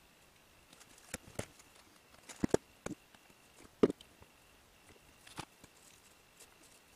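Scattered clicks and knocks of a soldering iron, pliers and small connector parts being handled and set down on a tabletop, the loudest about four seconds in, over a faint steady high-pitched tone.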